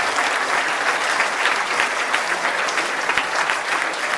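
Large crowd applauding: many hands clapping at once in a dense, steady wash.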